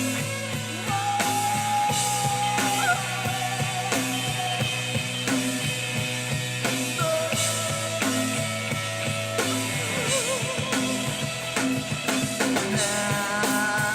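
Live rock band playing an instrumental passage: drum kit keeping a steady beat under a sustained bass line, with long held melody notes that waver in pitch above.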